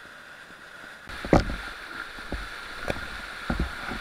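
Kayak running through whitewater rapids below a weir: rushing, churning water, louder from about a second in, with waves slapping sharply against the bow several times, the first hit the loudest.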